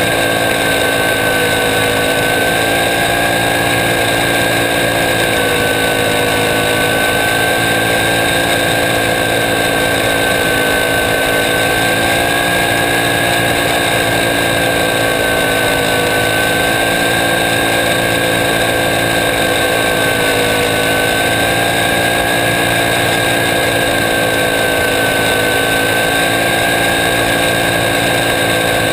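Engine of a small open-cockpit racing car heard onboard at racing speed: a steady, loud drone whose pitch dips slightly and climbs back every several seconds as the car works through the turns.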